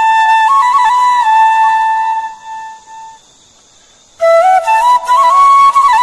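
Background instrumental music: a flute playing a melody. It fades out a little after two seconds in, leaves a gap of about two seconds, then comes back.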